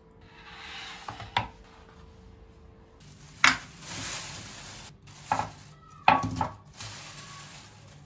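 Kitchen handling noises: about four sharp knocks of things set down on a wooden countertop, with rustling between them, in the second half from a thin plastic bag of garlic bulbs being handled.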